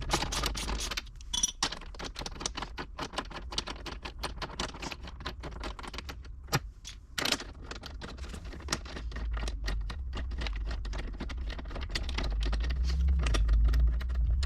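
A hand ratchet with a 5/8-inch socket clicking rapidly as it backs out a bolt, pausing briefly about six seconds in. A low hum underneath grows louder near the end.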